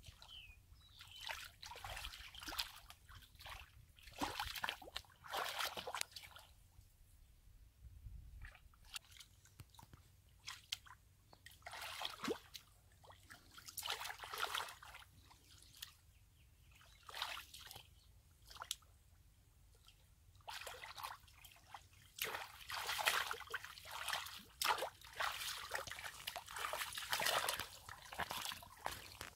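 Hands groping and scooping in shallow muddy water, sloshing and splashing in irregular bursts with short quiet spells, busier over the last third.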